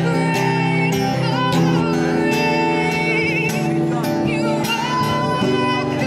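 A woman singing a worship song with vibrato over her own strummed acoustic guitar.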